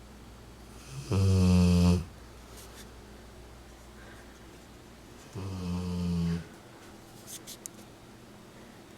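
Rottweiler snoring: two long pitched snores about four seconds apart, the first one louder.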